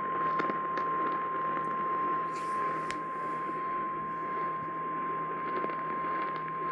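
A single steady alert tone just above 1 kHz, the 1050 Hz NOAA Weather Radio warning alarm, heard through AM radio static with a few faint clicks. It marks the start of a new warning, here a tornado warning.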